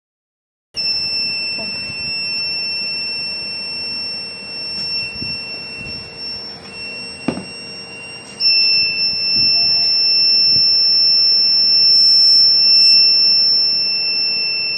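Piezo buzzer of a homemade rain alarm sounding a continuous high-pitched tone, the alarm set off by water on its sensor. The tone starts abruptly about a second in, then shifts slightly in pitch and gets louder about eight seconds in.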